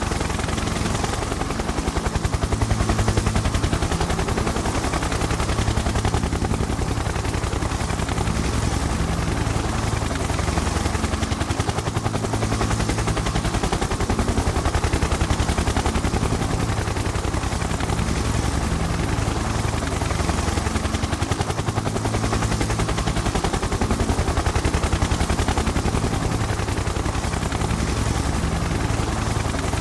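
Helicopter in steady flight: a fast, even rotor chop over a steady engine hum, running without a break.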